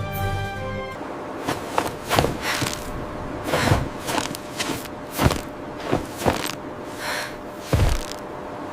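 A series of irregular sudden thuds and crunches, about a dozen over several seconds, several with a deep low thump. Music stops about a second in.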